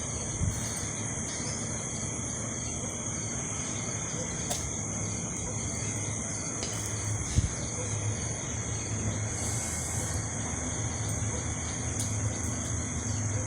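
Insects trilling in a steady, high-pitched chorus, with a low hum underneath and a single brief knock about seven seconds in.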